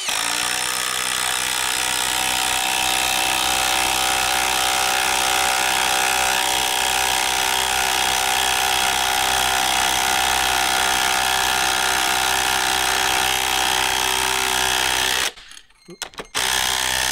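Ryobi P239 brushless impact driver hammering a 4-inch lag bolt into wood under heavy load, running steadily for about fifteen seconds. It stops briefly, then hammers again in a short final burst near the end.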